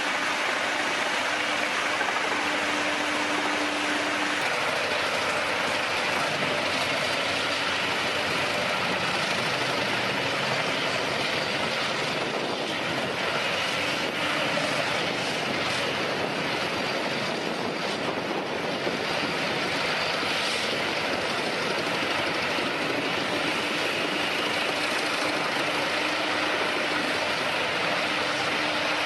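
Heavy machinery running steadily: a constant noisy rush with a faint hum that drops away after a few seconds and returns near the end.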